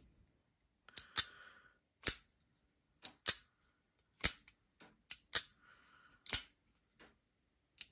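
Winter Blade Co. Factor folding knife, with its magnetic detent and magnetic hockey-puck lock, being flicked open and snapped shut over and over. It gives sharp clicks about once a second, some of them doubled.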